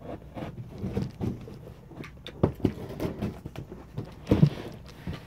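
Cardboard boxes being handled and unpacked by hand: irregular rustles, scrapes and knocks, the loudest about four and a half seconds in.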